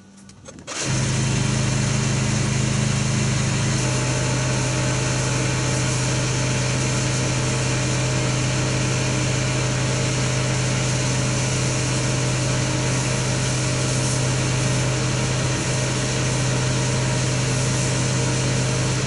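A small motor-driven machine starts up about a second in and runs steadily with a strong low hum.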